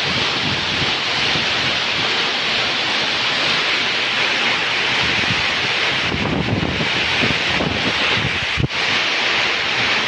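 Torrential rain pouring down on and around a corrugated roof, with strong wind gusts buffeting the microphone, heaviest about six to eight seconds in. A brief dip in level with a low bump comes about nine seconds in.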